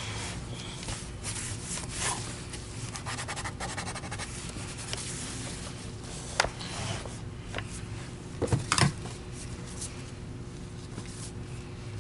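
Cloth rubbing and wiping over the plastic housing of a Filter Queen Majestic vacuum power head, steady scrubbing strokes throughout. A sharp tap comes about six seconds in, and a few louder knocks follow a couple of seconds later as the head is moved.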